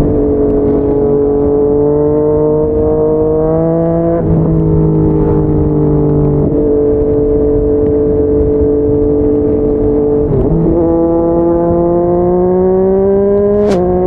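Yamaha MT-09's three-cylinder engine running hard through a Yoshimura R55 slip-on exhaust. The revs climb slowly and drop back several times, about every few seconds. A sharp crack comes near the end as the revs fall.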